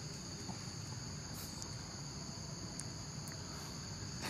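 Steady, high-pitched insect chorus, an unbroken drone over a faint low rumble.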